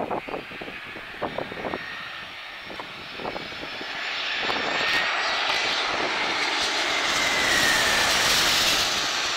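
Boeing 717's twin Rolls-Royce BR715 turbofan engines on landing approach, the jet noise and a high whine building as it passes low overhead and loudest near the end. Wind buffets the microphone in the first couple of seconds.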